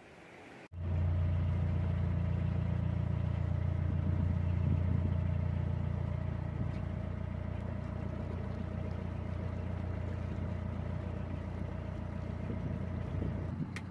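Narrowboat's diesel engine running steadily at low revs, heard from the stern beside the tiller: a loud even low hum with a fainter higher tone above it. It starts abruptly about a second in.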